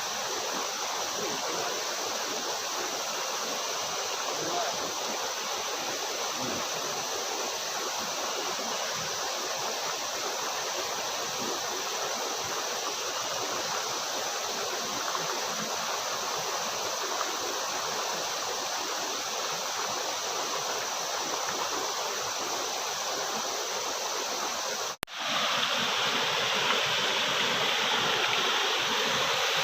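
Waterfall water rushing in a steady, even roar. About 25 seconds in it drops out for a moment, then comes back louder and brighter.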